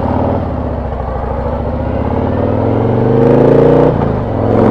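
Harley-Davidson V-twin running through a Rinehart exhaust fitted with FuelMoto tunable inserts, under acceleration: the engine note climbs steadily for a couple of seconds, drops off suddenly about four seconds in, then rises again briefly.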